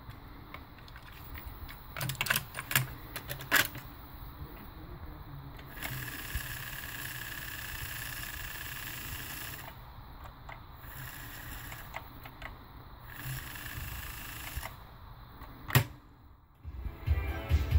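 Tandberg TCD 340 A cassette deck's transport mechanism: a cluster of sharp clicks and clunks as a cassette is loaded and the keys are pressed. Then a steady whir with hiss and a held tone cuts in and out three times. One more clunk comes, and music starts playing from the tape near the end.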